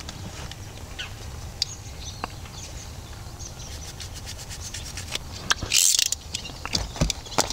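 Rubbing and rustling as gloves are pulled on and handled, with scattered small clicks over a steady low rumble, and a louder rustle about five and a half seconds in.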